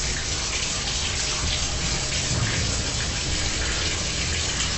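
Water running steadily from a tap into a bathtub.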